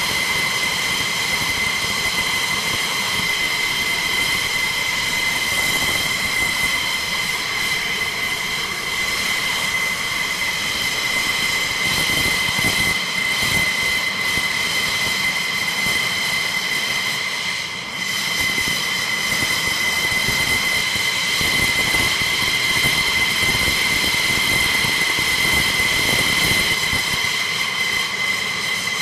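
F-16C Block 52 fighter's Pratt & Whitney F100 turbofan engine idling on the ground during warm-up: a steady high-pitched whine over a constant rushing noise.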